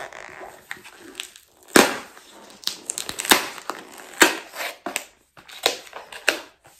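Paper and cardboard packaging of a small gift box being handled and opened by hand: irregular sharp crackles and rustles, with about half a dozen louder crackles.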